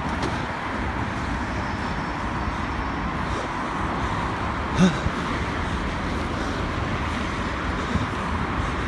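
Steady street traffic noise from passing vehicles, with a brief voice about five seconds in.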